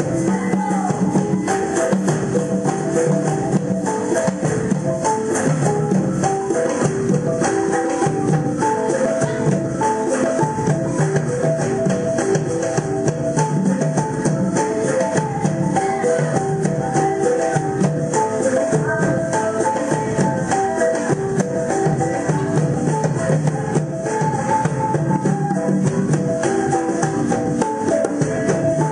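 Music for the andarele, an Afro-Ecuadorian folk dance: a steady, rhythmic shaker rattle and drums under a melody of quick, short repeated notes.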